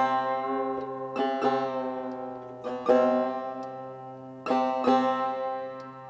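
Persian long-necked lute being plucked in a slow phrase: a few single notes, each ringing out and fading, over a low steady note that keeps sounding underneath.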